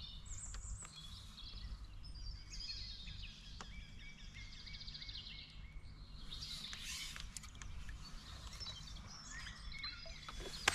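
Songbirds singing, with many short chirps and quick trills, over a low steady background rumble.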